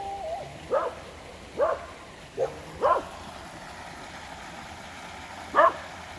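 A dog barking: four short barks in the first three seconds and one more near the end, over the steady sound of a creek running over rocks.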